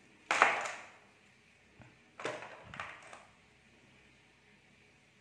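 Handling noise from small rotary-tool accessories and their packaging being picked up and set down over a plastic case: a sharp knock about a third of a second in that fades over about half a second, then a few softer knocks and rustles between two and three seconds in.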